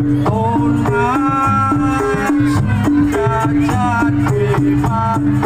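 Javanese traditional ensemble music played live: drums and percussion strokes under a short repeating melody, with a higher melodic line that slides between notes.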